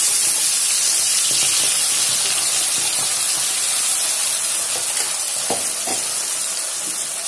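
Wet ground onion-tomato paste sizzling hard in hot oil in an aluminium kadai just after being poured in, a loud steady hiss that eases slightly over the seconds.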